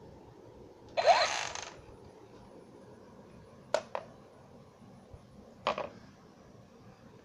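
Battery-powered plastic toy pistol giving its electronic shot sound once, about a second in: a short noisy burst with a rising tone. Later come two quick plastic clicks and a knock as the toy is handled and laid on a wooden floor.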